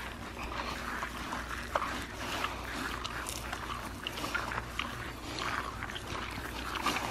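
Pigs grunting up close as they nose at celery held out by hand.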